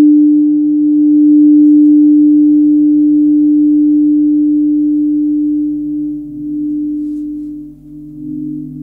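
Large forged Tibetan gong, about 80 cm, humming with a sustained low tone kept going by a ball-headed friction mallet rubbed on its face. The lower part of the tone pulses evenly. After about six seconds the hum wavers and dips slightly in pitch.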